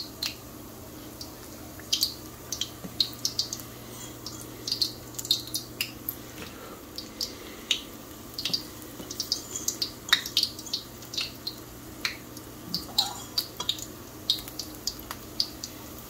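Battered dandelion fritters deep-frying in about an inch of hot vegetable oil in a wok: the oil crackles and pops irregularly around the batter, sometimes several pops close together.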